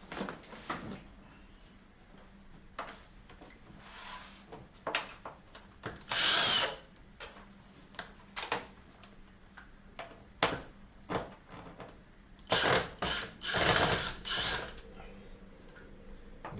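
Screws being backed out of the plastic rear cover of a Samsung plasma TV with a screwdriver, in short runs of driving broken up by sharp clicks of the tool and screws. The longest runs come about six seconds in and again near the end.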